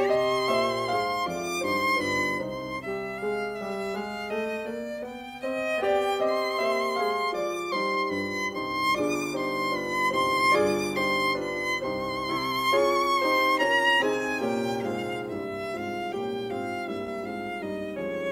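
Instrumental music led by a violin melody of sustained, wavering notes over accompaniment.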